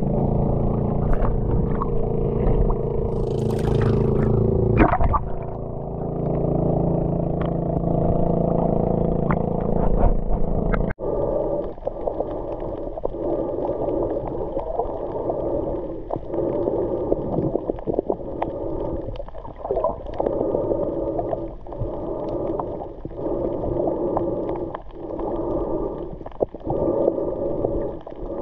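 Water heard through a waterproof action-camera housing at and below the sea surface: muffled sloshing and gurgling over a steady droning hum, with a brief splash about three to four seconds in. After a cut under the surface, the sound turns duller, with many small clicks and knocks.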